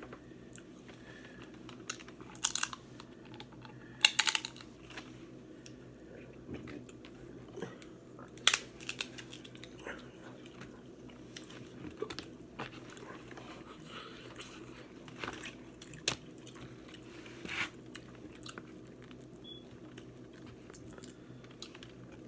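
Close-up eating sounds from a seafood meal of snow crab, shrimp and corn: chewing and mouth noises with sharp cracks and crunches every few seconds, over a steady low hum.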